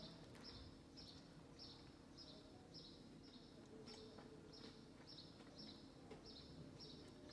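Quiet room tone with a faint, high chirp repeating evenly about twice a second.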